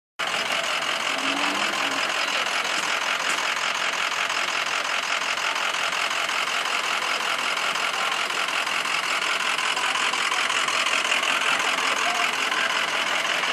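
Ford E-Series box ambulance's engine idling steadily.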